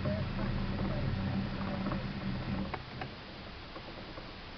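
Small boat's electric trolling motor humming steadily, then cutting out about two and a half seconds in, with two sharp clicks as it stops.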